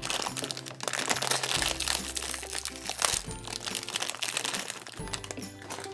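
Foil blind-bag wrapper crinkling and crackling as it is handled and opened by hand, over light background music.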